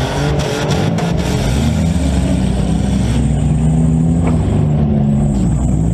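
Several compact demolition derby cars' engines revving, their pitch rising and falling as they drive and push against each other, with a few sharp knocks in the first second.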